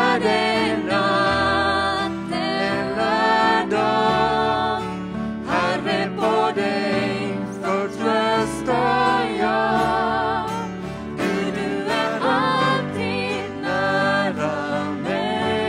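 Worship band playing a Swedish hymn-like song: sung vocals with vibrato over electric keyboard, acoustic guitar and bass guitar.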